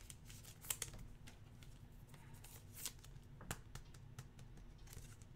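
Faint rustling and a few light clicks of trading cards being handled.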